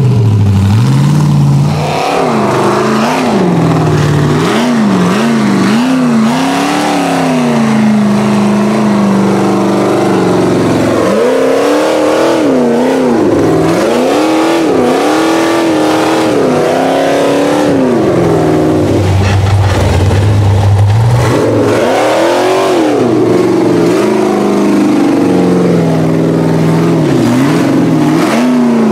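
Off-road rock buggy's engine revving hard in repeated bursts while it crawls up a steep rock ledge, the pitch rising and falling every second or so. About twenty seconds in it settles briefly to a steadier, lower tone before revving again.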